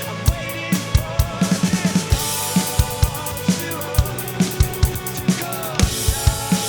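Alesis Nitro Mesh electronic drum kit playing a rock groove of kick, snare and cymbals along with the song's backing of guitars and keys, with a quick fill about a second and a half in and a crash near the end.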